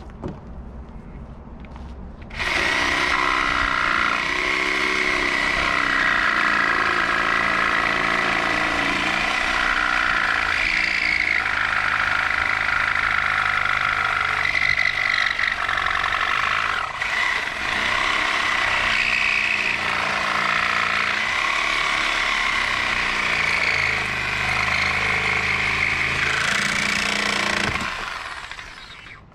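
Corded reciprocating saw (Sawzall) running and cutting, its blade sawing through the glued joint and nails between the particle-board floor and the rim joist. It starts about two seconds in and stops near the end, its pitch wavering as the blade loads and frees.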